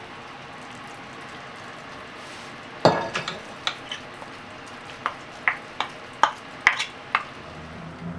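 Pot of soup simmering with a steady bubbling hiss. From about three seconds in comes a run of about a dozen sharp kitchenware clinks, the first the loudest.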